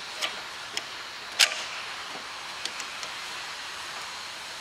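Pliers clicking and tapping against the handbrake lever and return spring on a car brake caliper: about six short, sharp metallic clicks, the loudest about a second and a half in, over a steady hiss.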